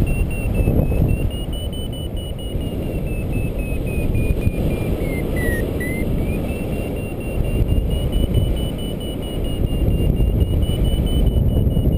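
Paragliding variometer beeping in rapid pulses, its pitch rising and falling with the climb rate and dipping briefly about halfway through; fast high beeps like these signal strong lift in a thermal. Under it, a steady rush of wind on the microphone is the loudest sound.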